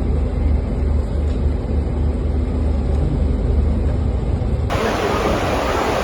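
A steady low rumble, then about four and a half seconds in a sudden cut to a loud, even rushing of floodwater pouring from a burst water main.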